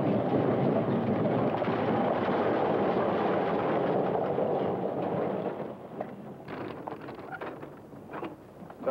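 Hooves of several horses galloping, a dense drumming rumble that fades out about five and a half seconds in, leaving a few scattered hoof thuds.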